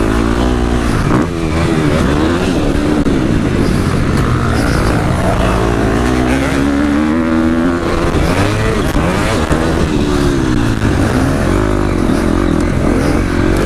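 Husqvarna motocross bike engine revving hard, its pitch climbing and dropping again and again as the throttle is opened and shut through the track, heard close up from a helmet-mounted camera.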